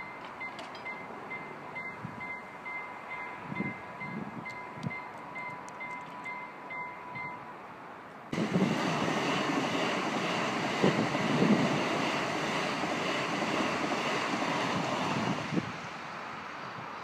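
Level crossing warning bell ringing in rapid repeated dings, which stop about seven seconds in. About a second later a loud steady rushing noise starts abruptly and runs for about seven seconds before dropping away.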